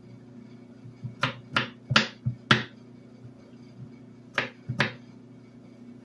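Chef's knife slicing through peeled eggplant and striking a bamboo cutting board: five quick chops about a second in, then two more near the end.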